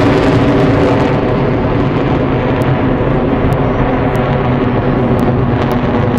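Four Blue Angels F/A-18 Hornet jets flying over in close formation: a loud, steady jet engine noise, its high hiss dropping away about a second in.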